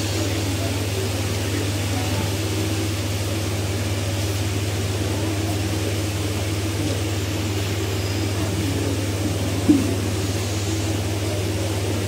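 A steady low hum throughout, with faint audience voices underneath and a single short thump near the end.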